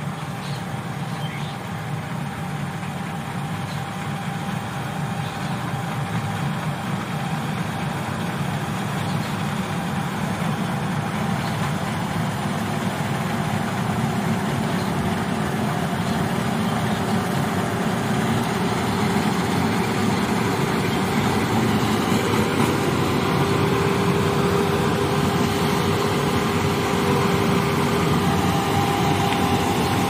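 Fiat Agri combine harvester running, its engine and machinery making a dense steady noise with a whine held through it, growing gradually louder.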